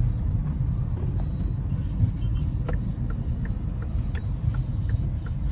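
Kia Sonet diesel driving slowly in city traffic, heard from inside the cabin: a steady low rumble of engine and tyre noise, with a few faint clicks.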